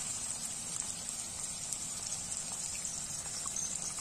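Chopped tomatoes and onions sizzling in hot oil in an iron kadai: a steady frying hiss with a few small crackles scattered through it.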